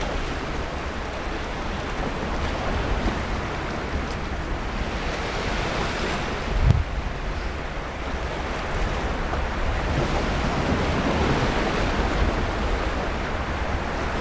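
Sea surf washing onto a beach in a continuous, gently swelling rush. Wind rumbles low on the microphone, with one brief buffet about halfway through.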